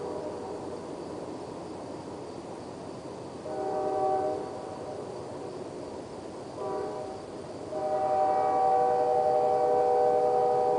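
Freight locomotive's multi-chime air horn sounding a chord in blasts: one of about a second, a short one, then a long one held to the end, over the low rumble of the train. The short-then-long ending matches a grade-crossing whistle signal.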